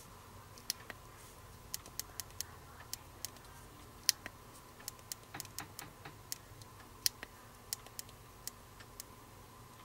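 Small plastic buttons on a Schwinn bike computer clicking under a thumb, about two dozen short, sharp presses at an uneven pace. The wheel-circumference digits are being stepped through in setup mode.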